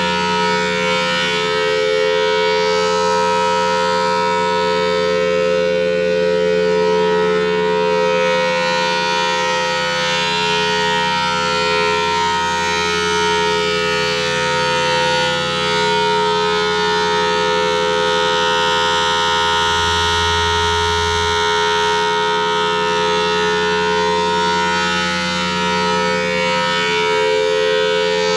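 Federal Signal Thunderbolt 1003 tornado siren sounding loudly. It holds a steady tone that wavers only slightly in pitch.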